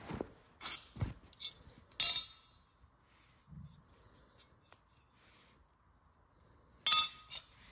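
Small hard metal objects clinking as they are handled and set down on a hard surface: a few separate sharp clinks early on, the loudest about two seconds in, and another loud clink near the end.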